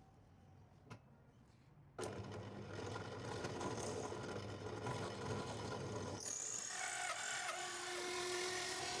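A workshop power tool starts suddenly about two seconds in and runs steadily with a low hum; about six seconds in its sound changes, turning brighter and hissier with higher steady tones.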